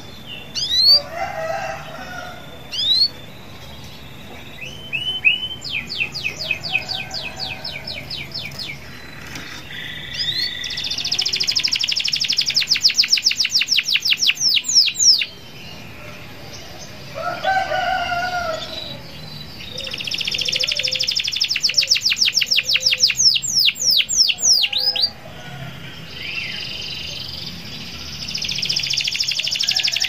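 Domestic canary singing energetically in long, fast trills of rapidly repeated high sweeping notes, phrase after phrase with short pauses between. A lower, shorter call is heard in the background about a second in and again a little past halfway.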